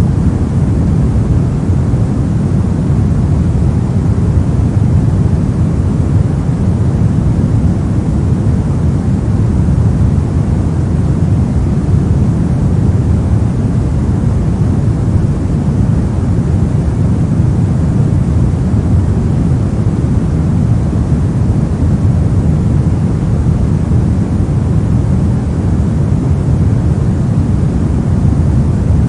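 Steady pink noise: a continuous, even rushing hiss, deepest and strongest in the low end, with no change throughout.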